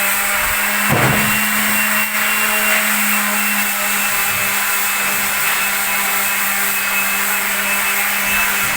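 A power tool's motor running steadily with a constant hum and whirr, during house demolition work.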